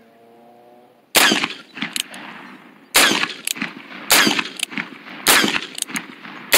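Black-powder cap-and-ball revolver firing five shots about a second apart, the first about a second in, each a sharp crack with a short echo.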